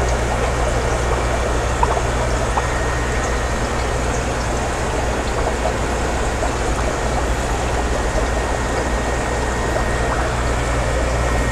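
Steady aquarium water noise: filters trickling and bubbling over a low steady hum.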